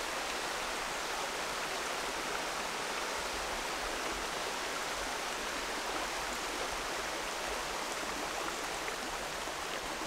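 Shallow, rocky mountain creek flowing and babbling over stones: a steady, even rush of water.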